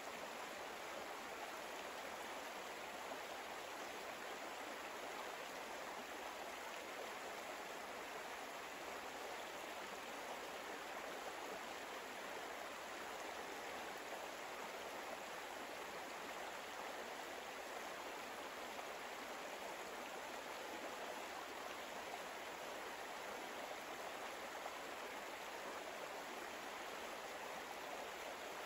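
Faint, steady rush of flowing stream water, an even hiss that does not change.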